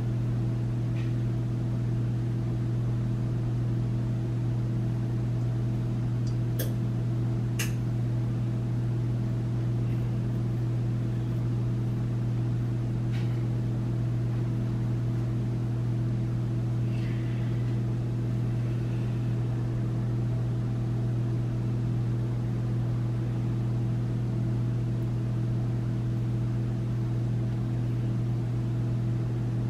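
A steady low hum that holds one pitch and level throughout, with a few faint light clicks and taps about a quarter and halfway through.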